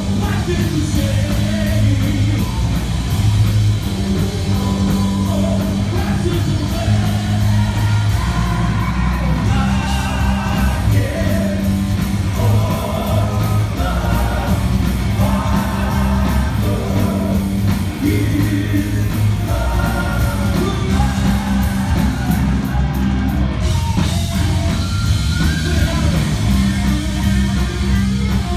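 Live heavy metal band playing at full volume, with guitars, bass and drums under a male lead singer's vocals, heard from the crowd with the bass heavy.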